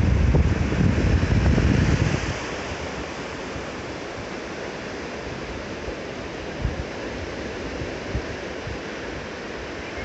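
Small sea surf breaking and washing up a flat sandy shore, a steady hiss of foam. Wind buffets the microphone with low rumbling gusts for the first two seconds or so, then eases.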